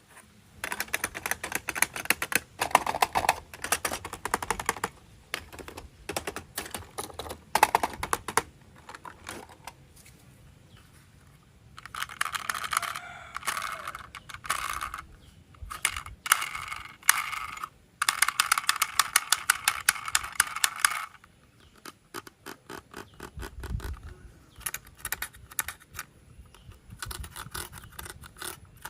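Hands handling toy train parts and their packaging: rapid clicks and taps of plastic pieces, with two longer stretches of scraping and rustling near the middle.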